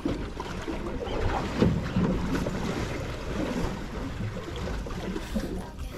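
Wind buffeting the microphone and sea water lapping and sloshing against the hull of a small fishing boat, with a louder knock or splash about a second and a half in.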